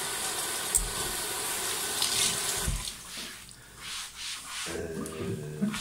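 Kitchen tap running steadily into a stainless-steel sink, shut off about three seconds in with a low thump; afterwards only faint handling sounds at the sink.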